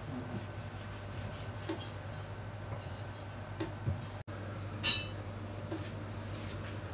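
Knife cutting pork belly on a wooden chopping board, with soft knocks every couple of seconds over a steady low hum. About five seconds in, a single bright metallic clink from an aluminium pot.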